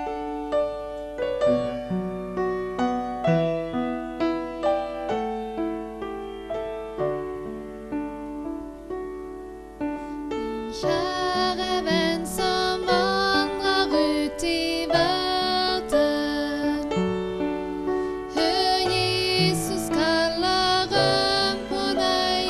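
Upright piano playing a slow introduction alone; about 11 seconds in, a woman's voice begins singing over the piano accompaniment, with a brief pause between phrases near the end.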